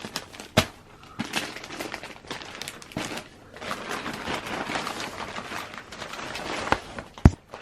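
Plastic packaging and clothing rustling and crinkling as they are handled, with sharp clicks or knocks about half a second in and twice near the end.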